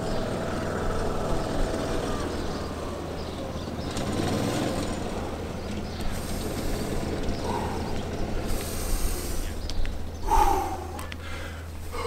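A man breathing hard and panting while he recovers from running the beep test to exhaustion, with a short voiced groan on an exhale about ten seconds in.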